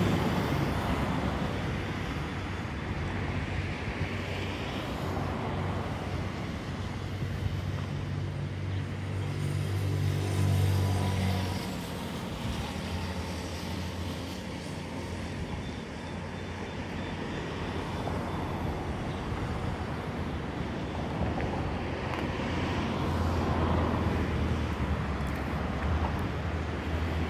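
Road traffic passing: vehicle engines going by, with a low engine drone that swells about ten seconds in and again near the end.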